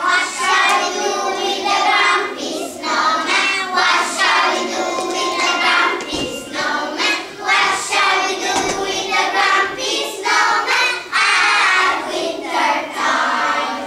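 A group of young children singing a song together, starting suddenly and carrying on in phrases.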